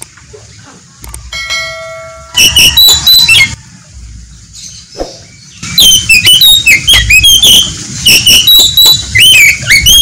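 Oriental magpie-robin (kacer) singing loudly: bursts of quick, varied whistled notes that glide up and down. A short burst comes about two and a half seconds in, and a longer run starts from about six seconds.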